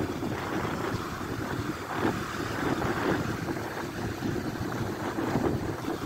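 Small sea waves breaking and washing up a sandy beach: a continuous rushing of surf that swells with each incoming wave.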